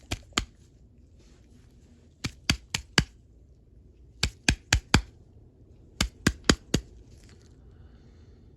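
Sharp metal taps in four quick groups of about four strikes each, a little over a second apart between groups: light hammer blows working on the ratchet's pawl post to free it.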